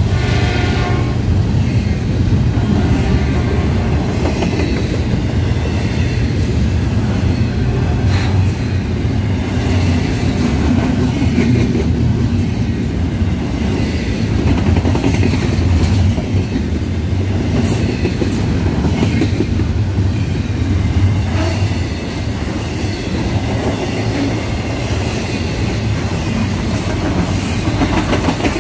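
Double-stack intermodal freight train cars rolling past close by: a steady heavy rumble of steel wheels on rail, with occasional clacks over the rail joints and a brief wheel squeal near the start.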